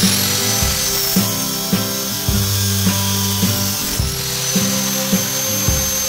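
A high-speed electric power tool whining as it spins up at the start, running on evenly, and spinning up again about four seconds in. Background music with a steady beat plays throughout.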